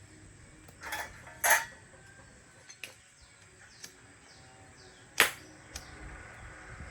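About six sharp knocks at uneven intervals, the loudest about a second and a half in and just after five seconds in.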